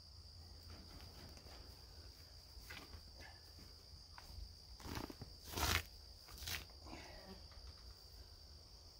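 Steady high-pitched drone of insects in the surrounding grass, with a few brief scuffs and rustles a little past the middle as the hanging lamb's hide is handled.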